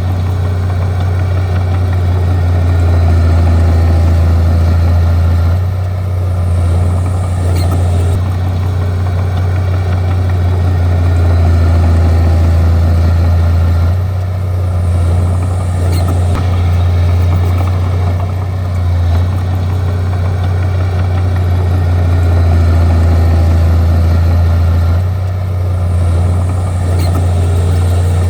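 Bulldozer's diesel engine running with a loud, steady low drone, dipping briefly four times as the load eases and then building again.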